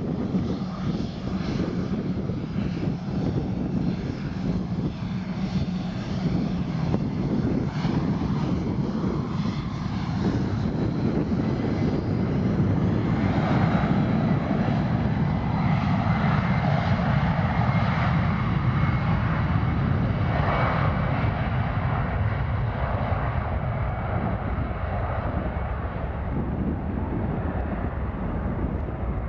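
Gulfstream IV business jet's twin Rolls-Royce Tay turbofans running steadily as it rolls along at taxi, growing louder about a third of the way in and easing off near the end.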